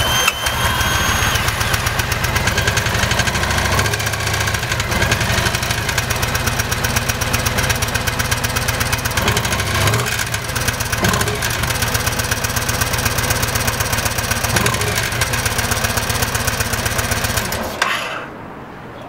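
Motorcycle engine running at idle just after start-up with a fast, even firing rhythm, then shut off abruptly near the end. This is the noise the owner presents as a bad sound at start-up.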